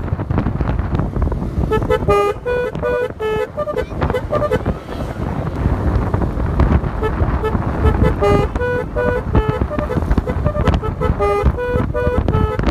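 Basuri telolet multi-tone air horn on a motorcycle playing a melody of short, stepped notes. It plays in a run about two seconds in and again from about eight seconds on, over a steady low rumble.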